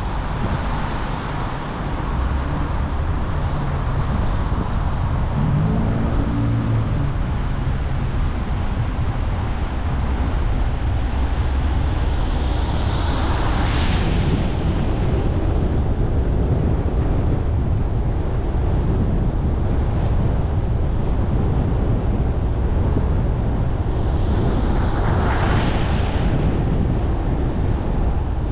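Steady rumble of tyres and traffic on a rain-soaked street. Twice, about halfway through and again near the end, a vehicle hisses past through the wet, swelling and then fading.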